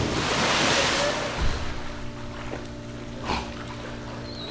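A Belgian Malinois splashing down in a dock-diving pool: the spray falls back into the water with a loud hiss over the first second and a half, ending in a thump. After that the water is quieter, with a steady hum underneath.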